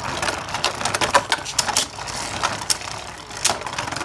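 Two Beyblade Burst tops, Super Hyperion and Kolossal Helios, whirring as they spin in a plastic stadium, with irregular sharp clacks as they knock against each other and the stadium.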